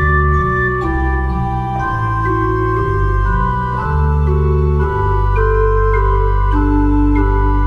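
Instrumental hymn backing track with no singing: sustained organ chords moving about once a second, over a long held deep bass note from about five seconds in.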